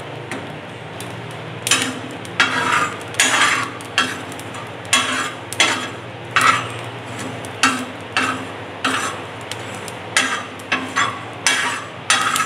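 Steel spoon scraping across a flat iron tawa, stirring whole cumin, fennel and coriander seeds as they dry-roast. The seeds rattle with each stroke. The strokes are short and repeated, a little more than once a second, and begin about two seconds in.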